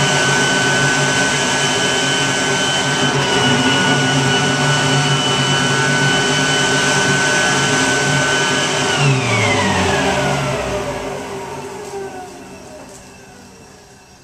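Workforce electric leaf blower running steadily at full speed, blowing cellulose insulation down a hose into a wall cavity. About nine seconds in it is switched off, and its whine falls in pitch as the motor spins down and fades.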